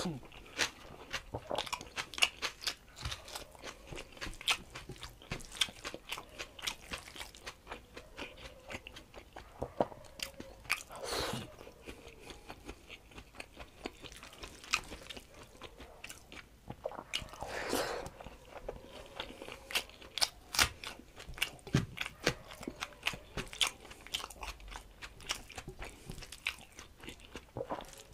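A person chewing a mouthful of rice with dal and vegetable fry, eaten by hand, close to the microphone: many short, wet mouth clicks and smacks, with two longer, noisier sounds about eleven and seventeen seconds in.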